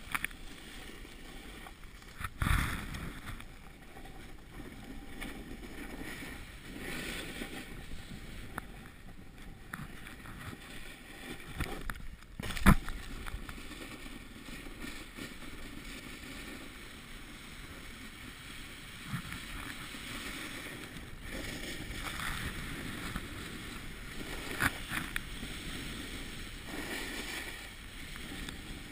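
Snowboard edges sliding and scraping over packed snow, a steady hiss that swells and fades with the turns. A thump comes early and a sharp knock about halfway through.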